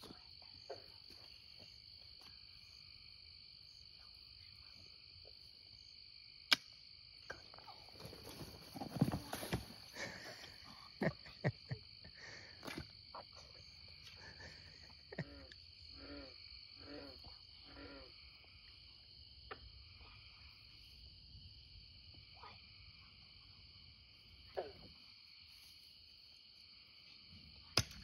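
Steady high chorus of night insects, with scattered knocks and rustles of people moving through pond-edge grass and mud. Around the middle comes a run of low hooting calls from an animal, about two a second.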